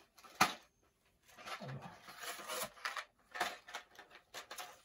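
Handling of a packaged Atlas HO scale manual snap switch: a single sharp knock about half a second in, then a run of irregular crinkling and clicking from its plastic packaging.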